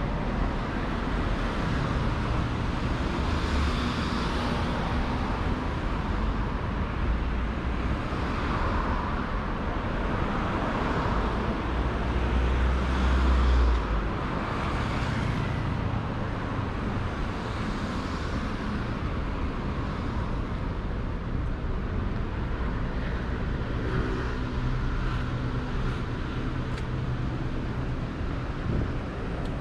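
Road traffic on a busy city street: cars passing one after another, each swelling and fading. A deep low rumble underlies the first half and cuts off about halfway through.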